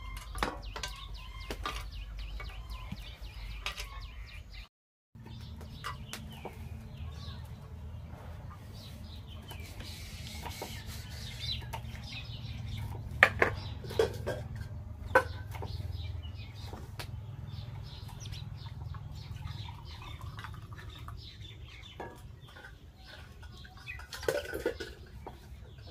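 Steel pots, plates and a ladle clinking and scraping, with a few sharp clinks about halfway through, while chickens cluck in the background.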